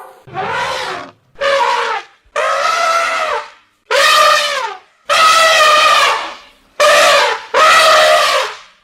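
African bush elephant trumpeting: a run of about seven loud, brassy blasts, each lasting about half a second to a second and a half, with short gaps between them.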